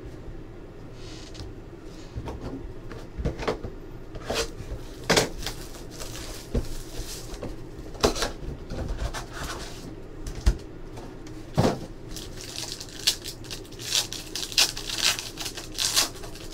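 Trading card boxes and packs being handled: scattered sharp taps and knocks of cardboard on the table. Near the end comes a run of crinkling as a foil card pack is torn open.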